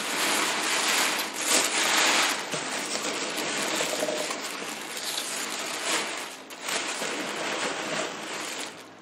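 Tissue paper crinkling and rustling, with packing peanuts shifting, as hands dig through a cardboard shipping box.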